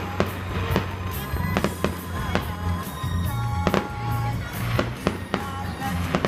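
Aerial fireworks shells bursting in an irregular run of bangs and crackles, about two or three a second.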